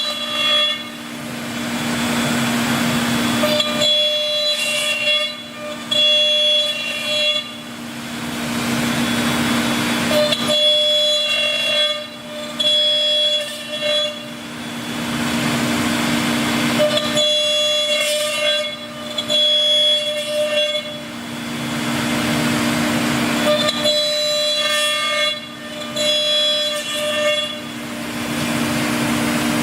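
Biesse CNC machining center running through a cycle. Two steady low whines run throughout, while higher pitched motor whines start and stop every second or two as the axes move, alternating with stretches of rushing noise in a pattern that repeats roughly every seven seconds.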